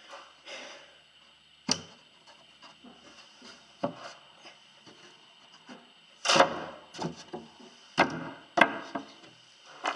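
Wooden panels knocking and clattering as they are handled and set into place over a boat's compartment: a string of sharp wooden knocks, spaced irregularly, with the loudest cluster about six seconds in.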